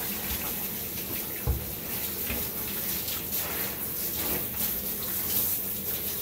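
Water spraying steadily from a handheld shower head onto a small dog's wet coat in a bathtub as the shampoo is rinsed out. A soft thump comes about one and a half seconds in.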